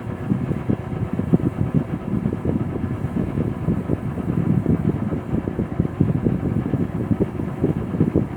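1972 General Electric Vortalex Super Luxo table fan running, its freshly cleaned and lubricated motor giving a faint steady hum under an uneven, fluttering low rumble of moving air.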